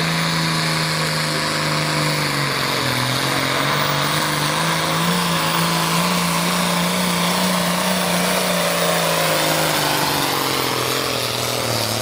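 Hot farm class John Deere pulling tractor's diesel engine running flat out while it drags the weight sled. Its pitch sags under load a few seconds in, climbs and holds, then drops again near the end.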